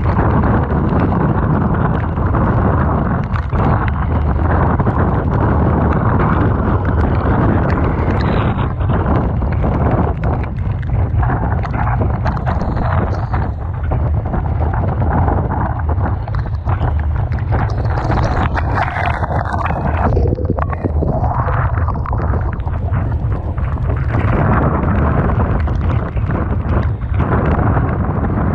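Typhoon wind buffeting the microphone in a heavy, continuous low rumble, over the steady rush of rough sea and breaking waves.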